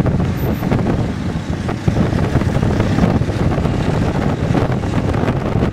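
Steady low rumble of a moving car, with wind buffeting the microphone at the car's side window.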